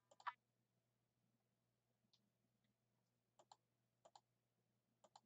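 Near silence broken by faint clicks: one louder click near the start, then three quick double clicks about a second apart.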